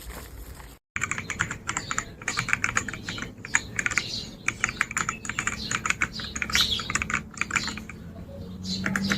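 Typing on an Ajazz AK820 gasket-mount mechanical keyboard: rapid, irregular key clicks that begin about a second in, after a brief dropout, and run on steadily.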